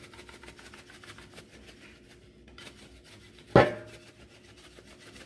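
Black pepper being shaken from a small container over a pot: a run of quick, light rattling shakes, then a single sharp knock with a brief ring about three and a half seconds in, the loudest sound.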